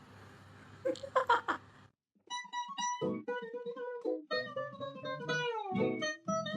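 Plucked guitar music starting about two seconds in: a run of picked notes, some sliding down in pitch. A short, loud, pitched sound comes just before it, about a second in.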